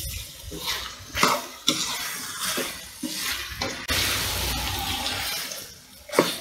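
Liver pieces frying in oil in a pan, sizzling as a spatula stirs through them, with a series of short scrapes and knocks against the pan and a steadier stretch of sizzling past the middle.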